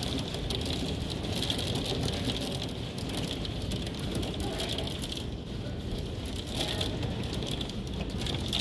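Hailstorm with rain: hailstones falling and striking the ground and the house in a dense, steady rattle of countless small impacts.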